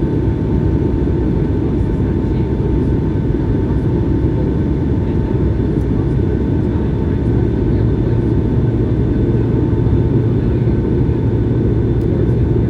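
Airbus A220-100 cabin noise in the climb: the steady roar of its Pratt & Whitney PW1500G geared turbofans and the airflow over the fuselage, with several steady high engine tones running over it.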